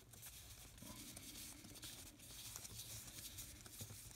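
Faint rustling and soft flicks of a stack of baseball cards being thumbed through one at a time, card stock sliding against card stock.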